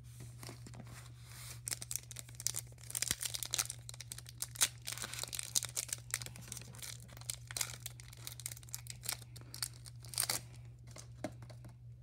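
Wrapper of a 2016 Donruss baseball card pack being torn open and crinkled: a long run of sharp crackles and rustles, thickest through the middle.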